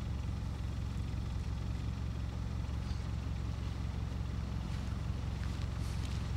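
A car engine idling at the kerb: a steady low rumble with no change in level, and a few faint light steps near the end.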